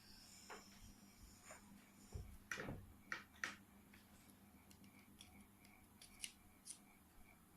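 Quiet room with a handful of short, faint clicks and taps, the loudest a quick cluster about two and a half to three and a half seconds in, then a few fainter ticks.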